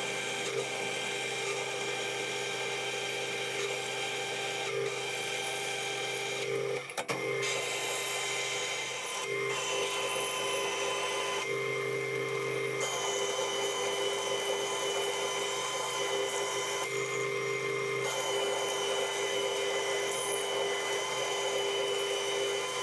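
Metal lathe drilling into a metal bar with a large twist drill: a steady machine whine with cutting noise from the drill, and a brief clunk about seven seconds in.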